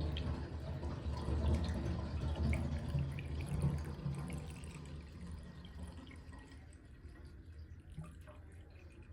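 Moen bathtub faucet spout just shut off after a new 1225 cartridge was fitted: leftover water trickling and dripping, fading away over about six seconds, with a few single drips near the end. A short run of dripping after shut-off that the owner takes as normal, not a leak.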